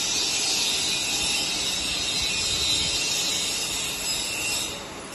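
Electric motor and gearbox of a stainless-steel mixer machine running, a steady hiss that dips briefly near the end.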